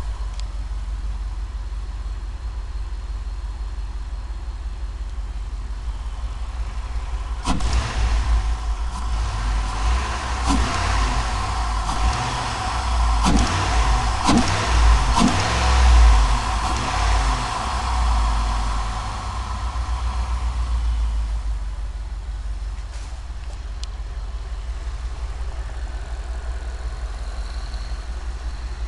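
Cadillac STS engine idling, then revved in a series of short blips from about a third of the way in, then settling back to idle. The engine has a misfire, which turned out to be caused by bad piston rings.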